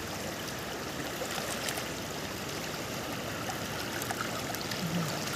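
Steady rush of river water flowing past, with a few faint clicks from a wet cast net being handled.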